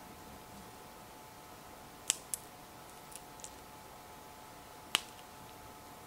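Dehydrated chicken-heart dog treats being snapped and broken apart between the fingers: a few short, crisp cracks, the loudest about two seconds in and again near five seconds, with a couple of smaller ticks between.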